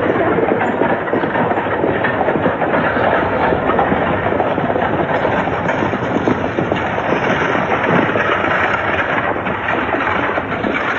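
Horse-drawn carriage going by, its hooves and wheels making a dense, steady clatter.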